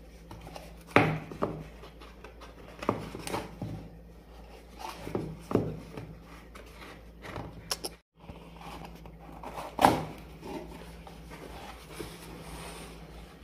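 Cardboard boxes being handled and set down on a wooden table: a few scattered knocks and rubbing scrapes, the sharpest about a second in and again near ten seconds, over a faint steady hum.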